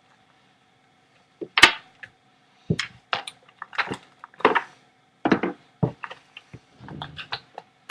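Irregular knocks and clicks of hard objects being handled and set down, about a dozen over several seconds, over a faint steady hum.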